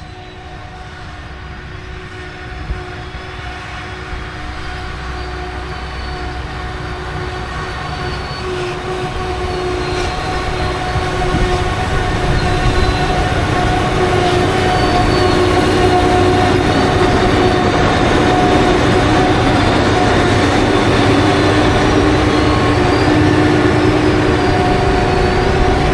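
Heavy diesel farm machine running with a steady whine over a low rumble, growing louder through the first half and then holding steady.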